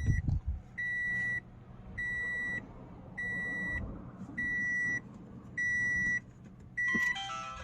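A 2012 Toyota Camry's warning chime beeping steadily, one high tone about every 1.2 seconds, with the engine switched off. A low thump sounds right at the start, and a short run of falling tones comes near the end.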